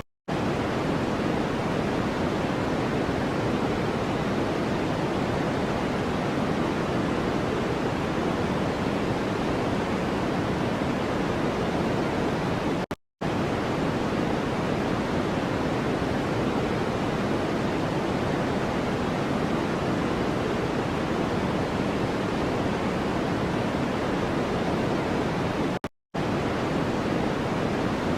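Steady white noise, a smooth rushing hiss weighted toward the low and middle range, with no tones or rhythm. It drops out for a split second twice, about halfway through and near the end.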